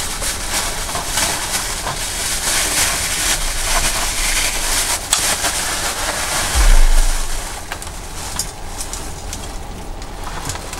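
Steady hiss from a frying pan of fish pieces on a portable gas stove, with a plastic bag rustling as salt is poured from it onto the fish. A brief low thump comes about six and a half seconds in.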